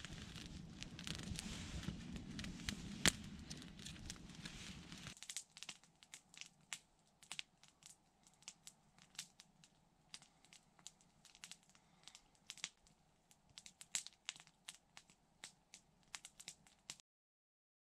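Wood campfire burning with crackles and sharp pops. For the first five seconds or so there is a steady rush of flame under the crackling. After that it falls to a quiet background with scattered snaps, and near the end it cuts out briefly.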